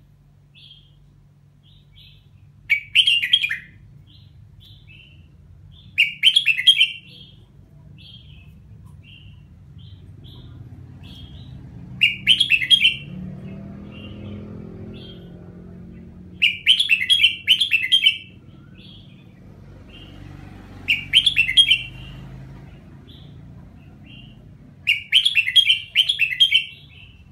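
Caged red-whiskered bulbul singing: six loud, short warbling phrases several seconds apart, with soft single chirps in between, over a low steady hum.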